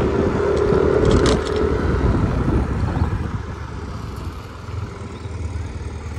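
Yamaha scooter running on the move, with a steady low rumble and a light whine in the first couple of seconds, a brief clatter about a second in, and the engine noise easing off after about three seconds as the scooter slows.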